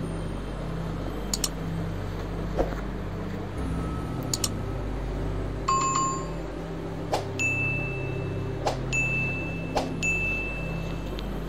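Sound effects of an animated subscribe-button overlay: several sharp mouse clicks and a few short, clear electronic dings, most dings following right after a click, over a steady low hum.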